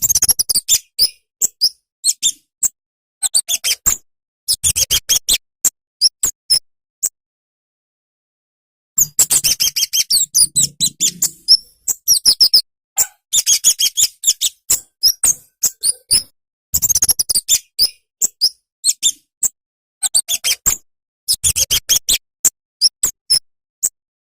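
A kemade flowerpecker singing in bouts of rapid, high, thin chirps, with pauses of a second or two between bouts.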